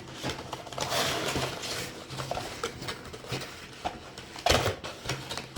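Cardboard box lid flaps being folded and pressed flat by hand: rustling and creasing, with scattered taps and one louder knock about four and a half seconds in.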